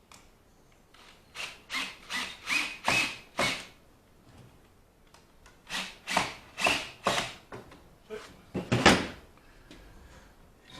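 Hand tool strokes on wood, in a rhythmic run about two a second, then a second run and one louder stroke near the end.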